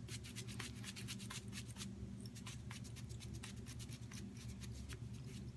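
Fingers rubbing latherless shave soap onto a stubbled face, a faint, quick scratchy rasping over a low steady hum.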